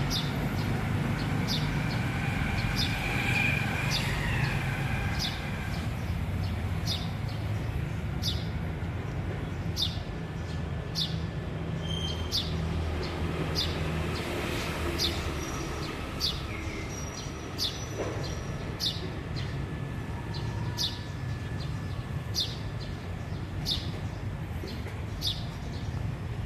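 A small bird chirping, one short high chirp about every second, over a steady low rumble.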